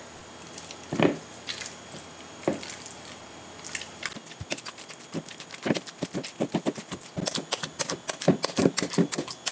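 Potato masher pressing into boiled banana peels: soft wet squishes and clicks, a few single ones at first, then quick repeated strokes from about four seconds in.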